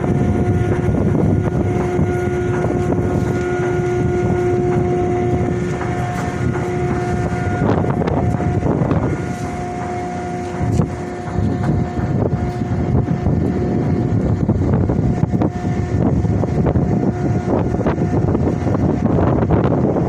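Mooring winch running with a steady whine that stops about eight seconds in and starts again for a few seconds, over a heavy rumble of machinery and wind on the microphone, with the occasional knock.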